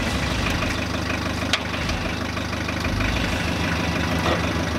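Engine of the machine lifting the cast iron engine crane, idling steadily, with one sharp click about a second and a half in.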